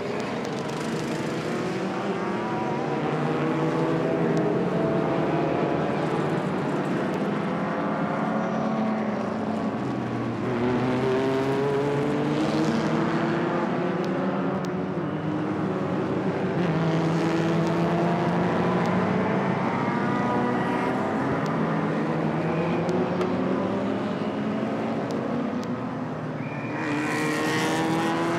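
Race cars' engines accelerating out of a corner, several at once, each pitch rising through a gear and then dropping back at the shift, over and over as the pack passes.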